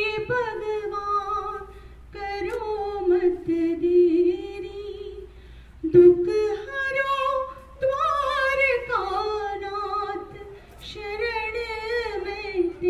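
A woman singing a slow prayer song unaccompanied, holding long notes with a wavering pitch, in phrases with short breaks between them.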